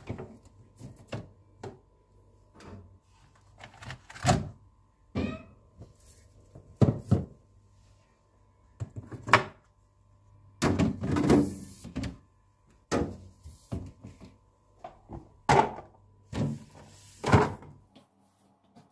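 Irregular knocks, thunks and clatters of shelves, drawers and containers being handled and set down inside a refrigerator during cleaning, with a short stretch of scraping or rustling midway. A faint steady hum runs underneath and stops near the end.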